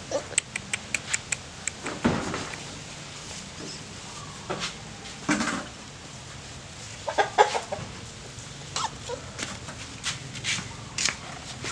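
Short animal calls: a quick run of brief notes, about four a second, over the first second and a half, then a handful of louder calls spread through the rest.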